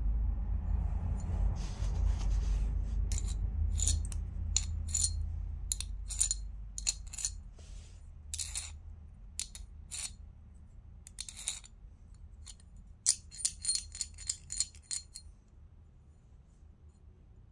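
Metal coins clinking and tapping against each other as they are handled: a string of short, ringing clinks that come thick and fast for a couple of seconds near the end. Low rubbing and handling noise runs under the first few seconds.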